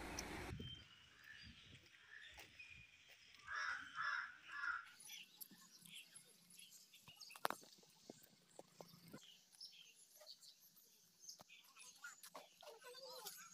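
Quiet outdoor ambience with birds calling: three harsh calls in quick succession about three and a half seconds in, then scattered faint chirps and small clicks, with one sharper click about halfway through.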